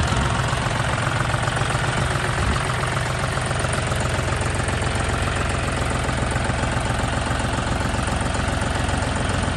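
John Deere 5050D tractor's three-cylinder diesel engine idling steadily.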